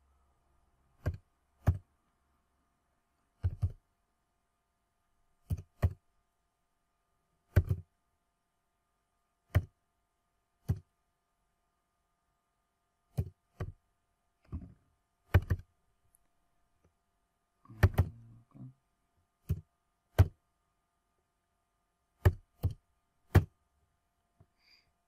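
Computer keyboard keys pressed one at a time as digits are typed, about twenty dull, thudding keystrokes at an irregular pace, some in quick pairs and small clusters.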